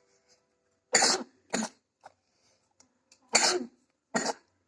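A child coughing: four short coughs in two pairs, the first pair about a second in and the second near the end.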